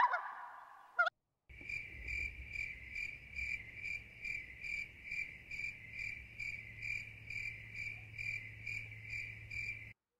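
Cricket chirping in an even rhythm, about three chirps a second, over a faint low hum. It starts about a second and a half in and stops just before the end.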